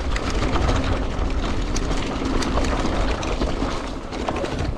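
Mountain bike rolling fast down a dirt trail strewn with dry leaves: a steady, heavy low rumble of the ride with a scatter of small clicks and rattles from tyres on leaves and twigs and from the bike itself.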